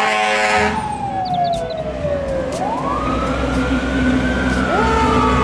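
Fire truck siren wailing as the truck drives past: the pitch falls slowly for about two and a half seconds, then climbs and drifts down again, with a second siren tone sweeping up near the end. A short blare opens the sound, and engine rumble runs underneath.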